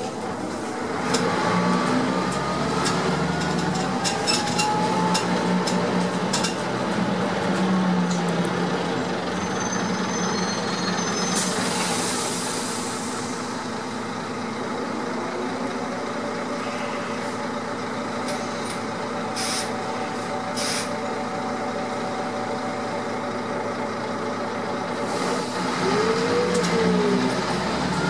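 Heuliez GX 417 articulated bus heard from inside the cabin while riding: engine and driveline running, with tones rising and falling as it speeds up and slows, and rattles and clicks from the body. A short burst of air hiss comes about halfway through.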